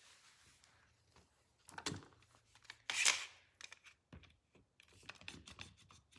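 Irwin one-handed bar clamp being set across a freshly glued wooden panel and tightened: a louder scrape about halfway through as the clamp goes onto the board, then a run of quick small clicks from the trigger.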